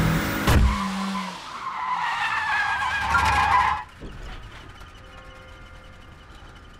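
Car engine running hard and tyres squealing in a skid, with a couple of sharp knocks at the start. The engine note falls, a wavering squeal follows, and then everything cuts off abruptly about four seconds in, leaving only a faint quiet background.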